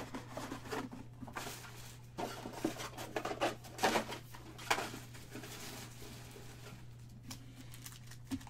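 Foil trading-card packs crinkling and rustling as they are handled, in irregular bursts with light clicks, busiest in the middle, over a steady low electrical hum.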